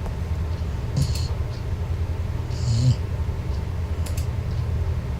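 Four-month-old golden retriever puppy snoring in its sleep: a steady low purr-like rumble, swelling into a louder, breathier snore about two and a half seconds in. Two brief clicks sound about a second in and again near four seconds.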